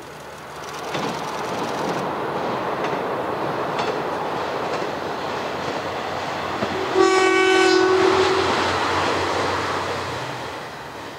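A two-car Sanriku Railway Class 36 diesel railcar set passes by, its engine and wheels on the rails growing louder as it nears, with a few clicks over rail joints. About seven seconds in it sounds its horn once, a single steady note about a second long, and then the running fades away.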